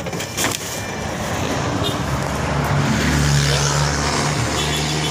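A couple of dull thumps as a sack of candlenuts is shoved onto the truck bed, then a motor vehicle engine running steadily with a low hum, growing louder through the middle.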